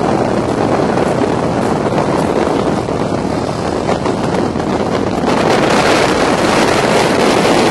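Heavy wind noise on the microphone aboard a 2009 Fountain 42 triple-engine powerboat running at speed, mixed with the engines and the hull on the water. The wind noise gets louder and harsher about five seconds in.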